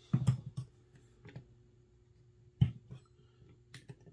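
Clicks and knocks of small metal tools and air-rifle breech parts being handled while the breech screws are loosened: a quick cluster of clicks at the start, a sharper single knock about two and a half seconds in, and a few light ticks near the end.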